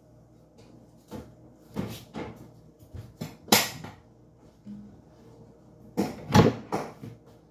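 Household handling noises close to the microphone: a string of short knocks and scrapes, the loudest about three and a half seconds in and a cluster near the end.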